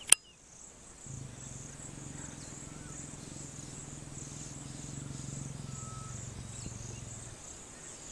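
Low, rough growling from a pair of mating lions, starting about a second in and holding for several seconds before dropping away near the end, over a steady high chirring of insects. A sharp click at the very start.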